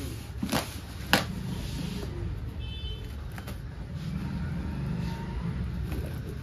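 Cardboard parcel being handled and opened: two sharp knocks in the first second and a half, then quieter handling, over a low steady rumble.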